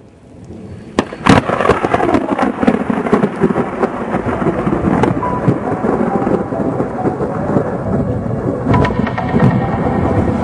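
Thunderstorm: a sharp crack of thunder about a second in, then continuous rumbling with heavy rain.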